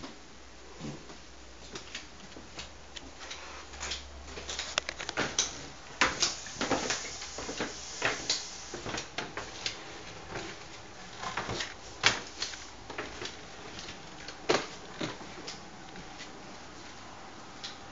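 A run of irregular clicks, taps and light knocks with some rustling, thickest in the middle and sharpest about six, twelve and fourteen and a half seconds in.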